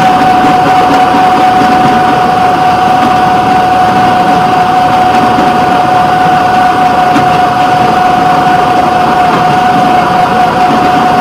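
Fire patrol rail vehicle running steadily along the track: continuous engine and running noise with a constant high-pitched whine over it.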